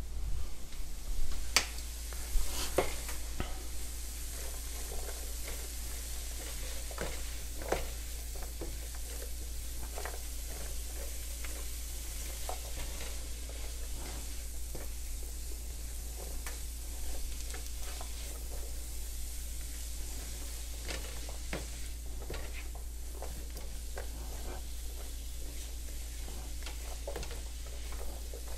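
Diced onion, celery and yellow bell pepper sizzling as they sauté in a nonstick frying pan, stirred and scraped with a silicone spatula in irregular clicks and scrapes against the pan, loudest in the first few seconds.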